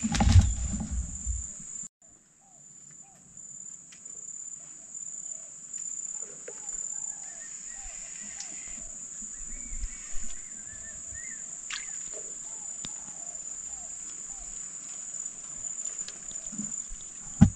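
Steady high-pitched drone of tropical insects on the riverbank, with short chirping calls scattered through it. A low rumble of handling or wind noise on the microphone in the first second or two.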